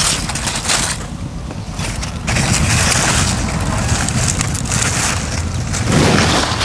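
Wind buffeting the microphone: a steady low rumble with hiss, easing off for about a second near the start and then gusting louder again.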